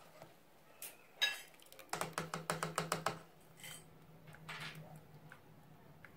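A slotted spoon scooping soft milk curds out of a steel pot of whey: a few light clicks, then a quick run of small clicks of the spoon against the pot, and soft wet sounds of the curds and whey. A faint low hum sits under the middle part.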